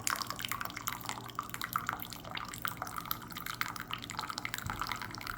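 Water dripping and trickling in quick, uneven drips.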